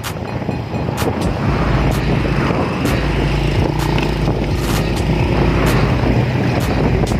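Motor vehicle running on the road, a steady low engine drone with road and wind noise and occasional knocks and bumps on the microphone.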